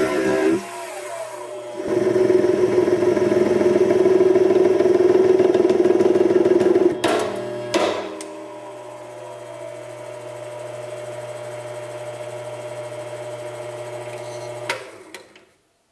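7x14 mini lathe running with its four-jaw chuck spinning a bolt: loud for about five seconds while the tool works the bolt's end, then a couple of sharp clicks and a quieter steady running hum. Near the end the lathe is switched off and spins down to a stop.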